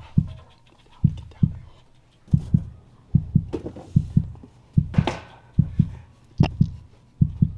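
Heartbeat sound effect: low thumps in lub-dub pairs, about one pair every 0.8 seconds, with a short rustle about five seconds in.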